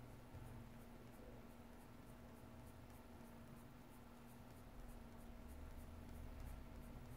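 Faint scratching of a pencil shading on sketchbook paper, many short strokes in quick succession, over a low steady hum.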